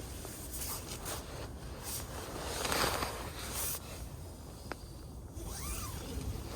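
Zipper being pulled in several short strokes, the longest and loudest about three seconds in.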